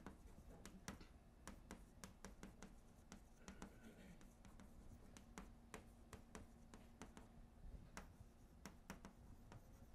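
Near silence: quiet room tone with a faint steady hum and many faint, irregular little clicks and taps.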